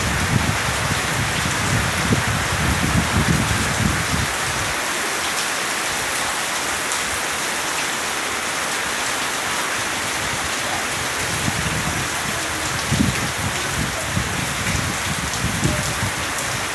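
Heavy rain pouring steadily on tree foliage, a dense, even hiss. Gusts of wind rumble on the microphone in the first few seconds and again near the end.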